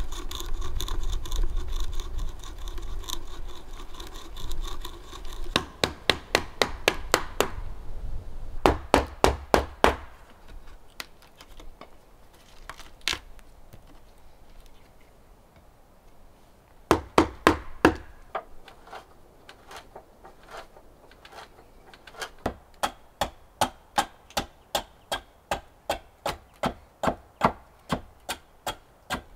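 A hand auger boring into a hewn log post, a steady grinding of the bit cutting wood, followed by bursts of rapid wooden knocks. In the second half a hatchet chops at the end of a wooden leg on a chopping block, steady strokes about two a second.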